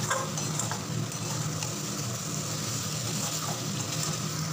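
Potato and pumpkin pieces frying with spices in mustard oil in a metal kadai, a steady sizzle. A metal spatula scrapes against the pan a few times as the mixture is stirred.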